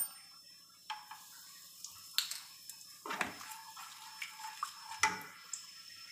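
Wooden spatula knocking and scraping against a steel kadhai while stirring whole spices in hot oil: a few separate short knocks, spread about a second or two apart.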